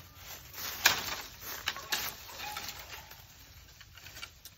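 A few sharp wooden knocks of a bolo knife striking bamboo: the loudest about a second in, two lighter ones near two seconds. A bird calls briefly a little later.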